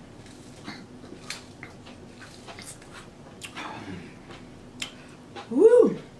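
A person drinking soda through a straw, with soft sipping, swallowing and light clicks from the can and mouth. Near the end comes a short, loud closed-mouth "mmm" that rises and then falls in pitch.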